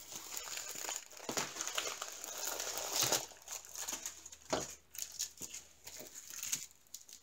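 Crinkling and rustling of a long diamond-painting sticker strip in its clear plastic cover, handled and shifted about on a table, with a few sharper clicks.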